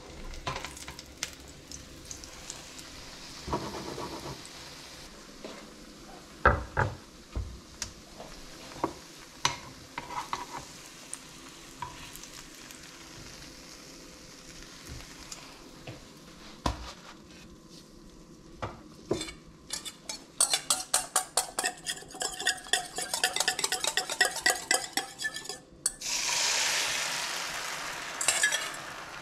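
Food frying quietly in a nonstick pan, with a spatula knocking against the pan now and then. Then a whisk beats egg in a stainless steel bowl, clinking in a fast rhythm for about six seconds. Near the end comes a loud sizzle as the beaten egg is poured into the hot pan.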